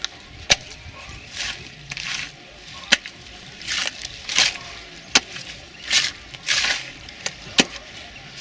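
A metal shovel scraping and slapping through wet brick clay in repeated strokes. The scrapes come in pairs, and a sharp knock of the blade falls about every two and a half seconds.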